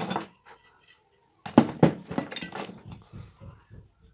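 Metal ceiling-fan parts knocking and clinking as they are handled during disassembly. A short clatter comes at the start, then two sharp knocks about a second and a half in, followed by a run of lighter rattles.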